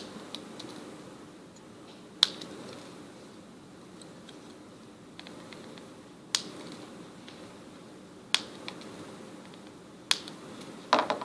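Flush side cutters snipping the excess diode leads on a circuit board: about half a dozen sharp snips, a couple of seconds apart.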